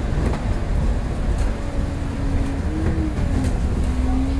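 Inside a Transbus single-deck bus on the move: steady low engine and drivetrain rumble with rattles from the body. A thinner tone rises and falls briefly around the middle and again near the end.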